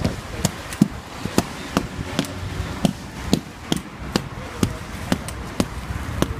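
Rubber mallet tapping a cast-in-place tactile indicator panel down into wet concrete, to bed it flush with the path. The taps are short and even, about two a second.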